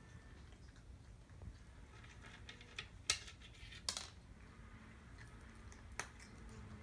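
Cats foraging dry kibble from a plastic spiral slow-feeder bowl: a few soft ticks, then three sharp clicks of kibble knocking against the hard plastic, roughly a second apart, over a low room hum.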